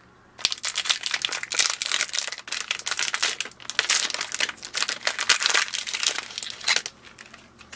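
Plastic packaging of an inkjet cartridge crinkling and tearing as it is pulled open by hand. It is a dense run of crackles that stops shortly before the end.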